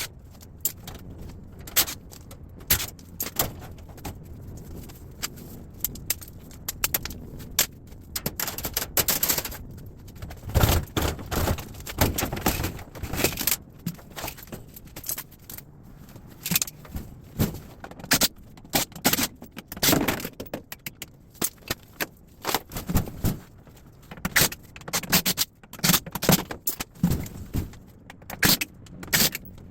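Pieces of scrap metal being handled: irregular metallic clinks, clanks, rattles and scrapes, with a busier run of heavier knocks about ten seconds in.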